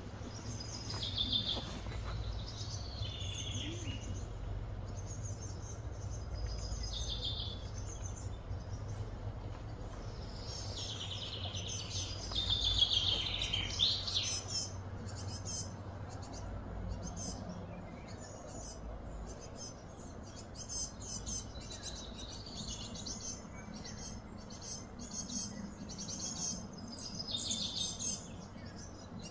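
Wild birds chirping and calling in quick, repeated short notes, busiest a little before halfway, over a low steady background hum.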